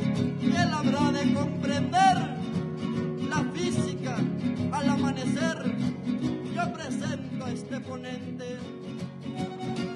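Huapango arribeño string ensemble playing: two violins carry a gliding melody over a steady strummed accompaniment from a huapanguera guitar and a vihuela.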